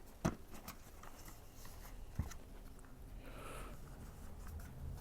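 Faint handling of a plastic drill case and rubber cord grommet being fitted together: light scraping and rustling, with two sharp clicks, one just after the start and one about two seconds in.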